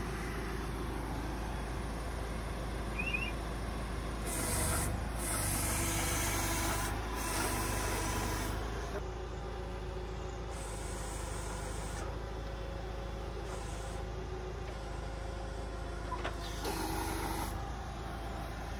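Tractor engine running steadily with a Spedo Fruipick hydraulic olive trunk shaker as its clamp arm is worked toward the trunk. Bursts of hissing noise rise over the engine from about four seconds in to about nine, and again near the end.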